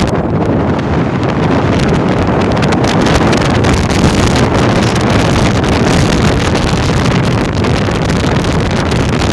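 Loud storm-force wind buffeting the microphone: a continuous, heavy rumbling roar with no let-up.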